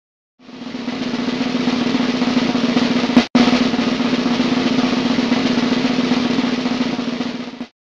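Snare drum roll played as a build-up for a reveal, starting about half a second in, breaking off for an instant a little past three seconds, and stopping just before the end.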